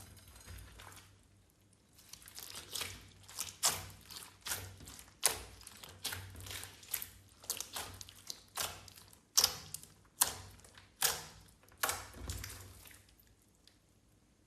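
Clear slime being squeezed and folded by hand, making irregular wet clicks and pops two or three times a second. It eases off briefly near the start and goes quiet for the last second or so.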